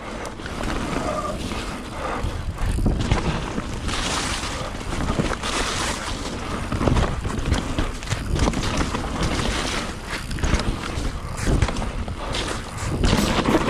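Mountain bike rolling fast down a wet dirt trail: tyres running over dirt with frequent knocks and rattles from the bike over bumps, and wind buffeting the microphone.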